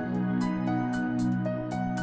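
Background music: a soft new-age track with sustained tones and a light, regular ticking beat.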